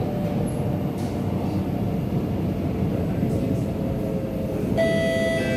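SMRT C751B electric train running at speed, heard from inside the carriage: a steady rumble of wheels and running gear with a faint steady whine over it. Near the end a chord of several steady tones comes in over the rumble.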